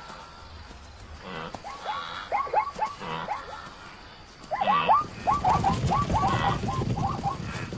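Plains zebras calling in alarm: rapid runs of short yelping barks, several a second, in two bouts. The second, louder bout begins about halfway through over a low rumble of commotion.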